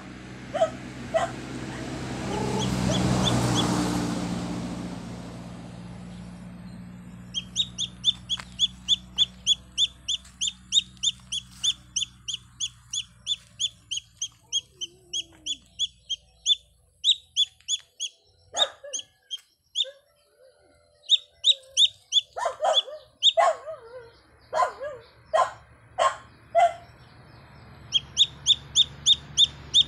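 A young domestic chicken chick peeping loudly and over and over, short high calls at about two a second with a few pauses: the distress call of a chick separated from its mother hen. A low rumble swells and fades in the first few seconds, before the peeping starts.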